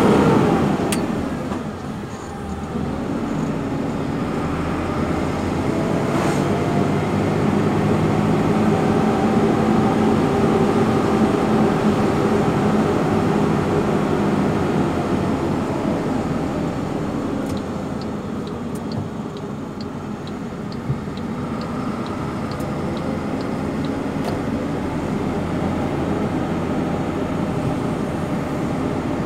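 Engine and road noise of a moving delivery vehicle heard from inside the cab. The engine note drops in the first two seconds as it slows, then holds a steady running drone that rises and eases gently. A light regular ticking runs for a few seconds just past halfway.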